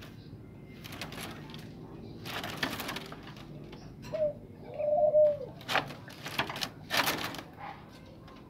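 A bird gives a short low cooing call about four seconds in, then a longer one that dips at its end, among several brief bursts of rustling noise.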